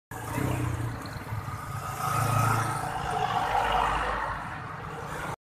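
Street traffic: motor scooters and motorcycles passing, their engines rising and fading as they go by.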